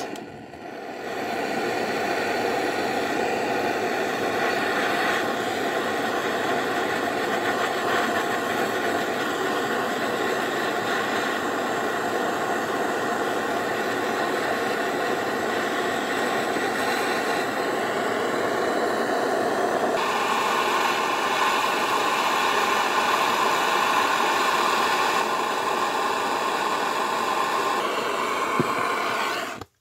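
Gas blowtorch burning with a steady hiss, its blue flame playing on the small steel tip of a chisel to heat it. The hiss grows a little brighter about two-thirds of the way through.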